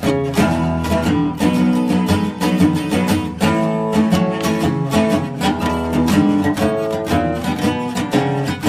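Background music with a strummed guitar and a steady rhythm.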